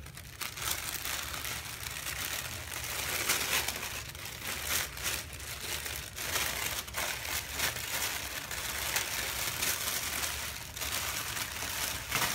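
Tissue paper and plastic wrapping rustling and crinkling continuously as hands fold it back and lift folded clothes out of a box, with irregular crackles throughout.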